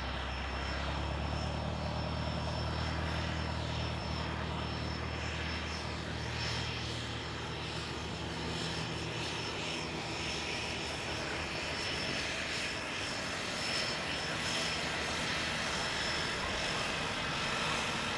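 Pilatus PC-7's Pratt & Whitney PT6A turboprop running at taxi power as the trainer taxis past, with a steady high turbine whine over the propeller's low drone. The drone fades in the second half as the aircraft moves by.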